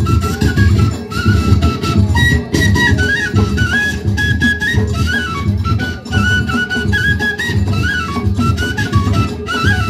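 Ahwach music: frame drums beating steadily under a high, piping flute melody that moves in short held steps.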